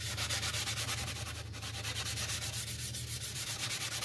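Fine 00-grade steel wool rubbed briskly back and forth over a painted model-aircraft cowl, a steady scratchy hiss in quick, even strokes. It is knocking down a ridge of dried paint and overspray left along the edge of masking tape.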